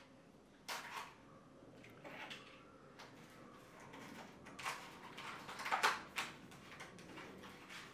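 Hands handling and opening a small cardboard-and-plastic retail pack, giving several short rustles and crinkles, the loudest about six seconds in.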